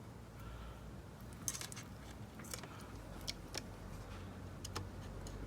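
Small sharp clicks and light metallic ticking from hands pushing a wire into the spring terminals of an electronics project kit, a handful of clicks at irregular intervals over a low steady hum.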